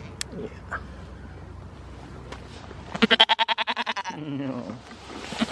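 Goat bleating close up: one loud, quavering bleat about three seconds in, then another starting right at the end.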